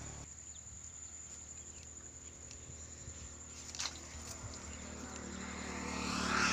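A fish jerked out of a muddy reed-fringed pool on a hand line with one short, sharp splash about four seconds in, over a faint low engine hum. Near the end an engine grows steadily louder.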